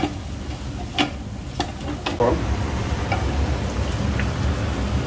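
Whole spices going into a cooking pot and being stirred: four sharp clicks of a spoon against the pot in the first half, with a brief scrape, over a low steady rumble that grows louder a little after two seconds.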